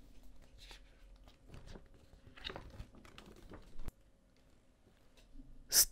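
Paper poster being handled and unfolded: faint rustling and crinkling with small ticks, then a short, much louder burst of paper handling noise right at the end. A low, steady hum runs underneath.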